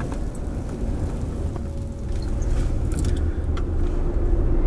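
Steady low rumble of wind buffeting the microphone outdoors as a storm passes, growing louder near the end, with a few faint clicks.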